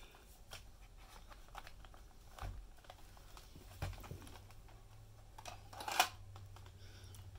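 Light plastic clicks and rattles of a compact cassette being handled and pushed into the cassette compartment of a camera's built-in cassette player, with one sharper click about six seconds in.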